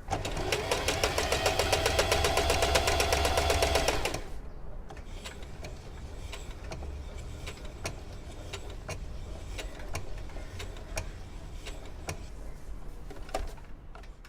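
Singer Heavy Duty 4432 electric sewing machine stitching fast, a rapid even run of needle strokes with a motor whine, for about four seconds. It then carries on more quietly with a low hum and scattered ticks.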